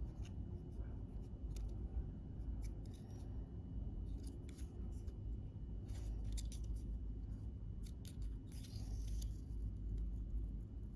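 Light clicks and taps of hands handling a phone and a camera-lens glass protector, with a brief rustle about eight and a half seconds in, over a low steady hum.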